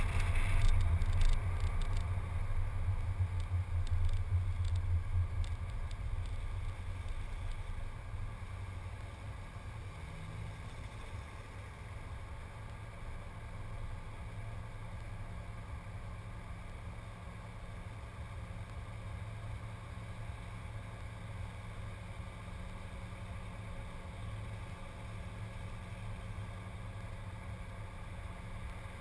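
Car wind and road noise that dies away over the first several seconds as the car slows to a stop, then a steady low rumble from the engine idling at the stop.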